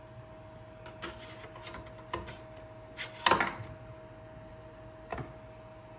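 Flexible magnetic build plate of an Elegoo Neptune 3 3D printer being handled and laid back onto the printer's bed: a few light clicks and taps, the loudest about three seconds in, over a faint steady hum.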